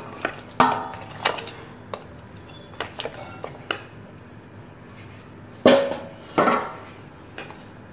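A wooden spoon knocking a few times against an aluminium pot of goat trotters in fried masala, then two louder scraping clatters about six seconds in, over a steady high-pitched whine.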